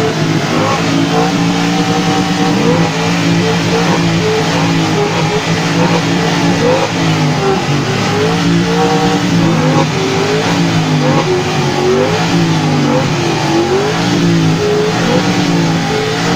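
Motor vehicle engines running and being revved, a steady hum with many overlapping short rises and falls in pitch.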